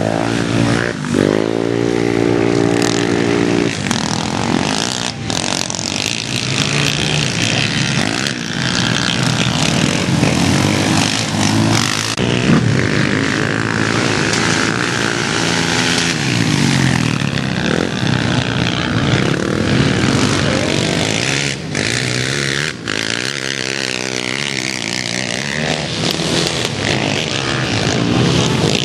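Racing quad (ATV) engines revving, several at once, their pitch rising and falling again and again as the riders open and close the throttle through the corners.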